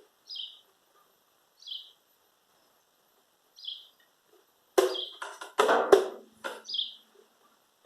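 A bird chirping, four short falling notes spaced a second or more apart. About five seconds in, a run of knocks and clatter from parts being handled, the loudest sounds.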